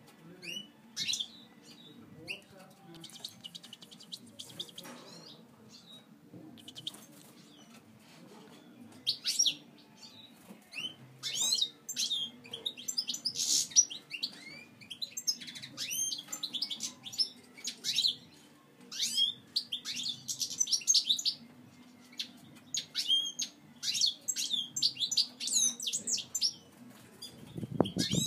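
European goldfinch singing: fast, high twittering phrases of quick chirps with short pauses between them, sparse at first and much busier from about a third of the way in. A faint steady low hum sits underneath.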